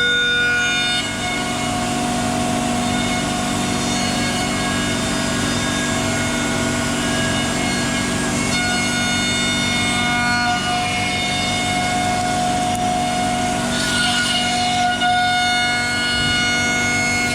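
CNC router running a cut in wood: a steady machine whine with several tones that start, stop and change pitch as the machine moves, over the noise of the cutting.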